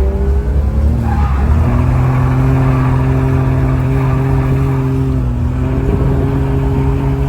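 Car engine at high revs during a drift run: a lower note for about the first second and a half, then it climbs and holds a steady high note, dipping briefly about five seconds in.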